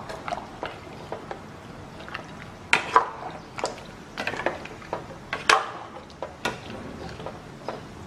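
Kitchen utensils clinking and knocking against cookware in irregular strikes, the loudest about three seconds and five and a half seconds in.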